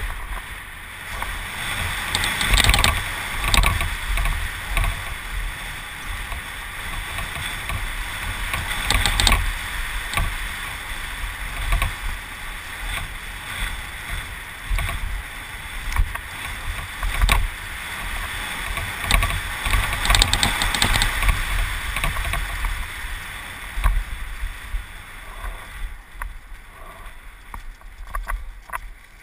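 Mountain bike ridden fast down a dirt trail, heard from a helmet camera: wind rushing over the microphone with tyres rolling on dirt, and knocks and rattles from the bike over bumps. It gets quieter for the last few seconds.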